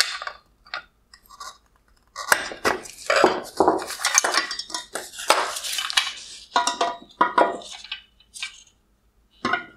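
Hard plastic and metal headlight parts (the plastic mounting bracket and LED drive units) clattering and clicking as they are freed and handled on a wooden bench. There is one sharp click at the start, then a dense run of knocks from about two seconds in until near the end.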